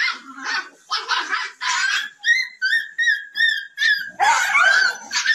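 Dogs barking in short bursts, then a quick run of about six short, high-pitched yelps in the middle, followed by louder barking near the end.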